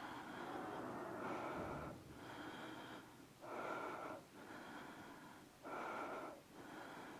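A person breathing audibly, slow inhales and exhales alternating about once a second, faint and breathy.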